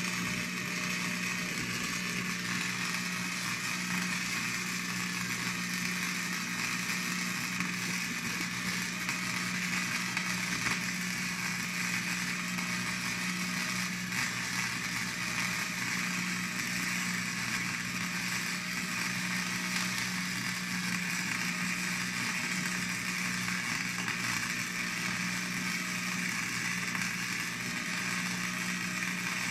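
Electric arc welder running a continuous bead: a steady crackle of the arc with the welding machine's low electrical hum underneath, unbroken throughout.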